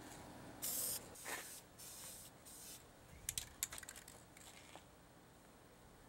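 Aerosol can spraying clear acrylic finish in a few short hissing bursts, followed by a few faint clicks.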